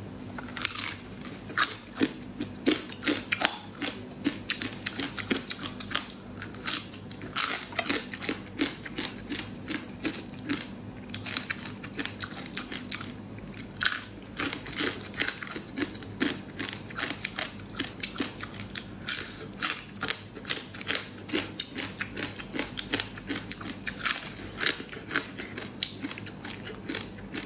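Close-miked eating: continuous crunching and chewing, with sharp crunches coming several times a second.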